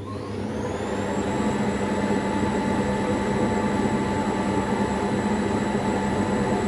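Gorenje PS 443 washing machine's Sever Subotica motor whining up in pitch over about a second, then running steady with a rumble from the drum: the machine coming up to speed.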